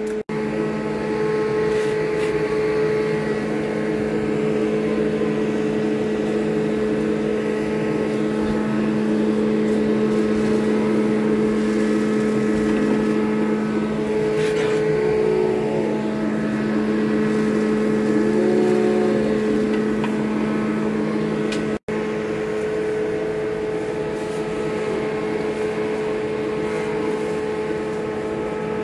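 Steady, loud machine hum with a constant pitch and several overtones. It breaks off for an instant a little past twenty seconds in, then carries on unchanged.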